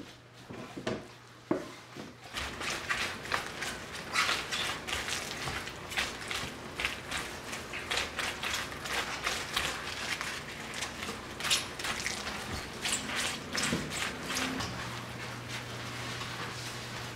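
Rubber-gloved hands rubbing red pepper seasoning paste into salted napa cabbage leaves in stainless steel bowls. A busy run of short, wet, squishing strokes, quickening about two seconds in.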